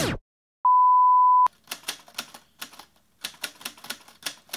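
A steady, high single-tone beep lasting under a second, then a sharp click and a run of typewriter key strikes, irregular, about four a second.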